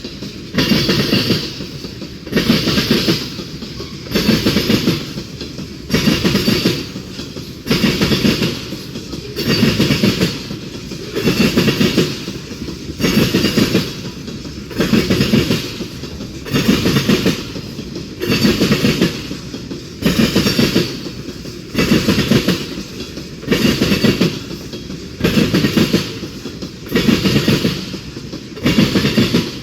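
CSX freight train cars rolling past, their wheels clattering over the track in a steady rhythm of loud bursts about every one and three-quarter seconds, one burst per car.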